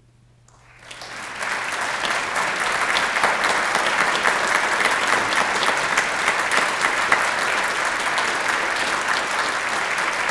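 Audience applause: after a brief hush the clapping breaks out just under a second in, swells within about a second and holds steady and full.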